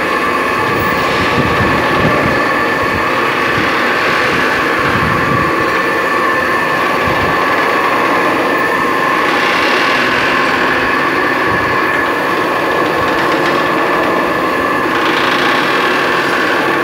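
Three-roll plate bending machine running, its rollers turning as they bend a heavy steel ship plate: a steady mechanical drone with a constant whine over a rough metallic grinding.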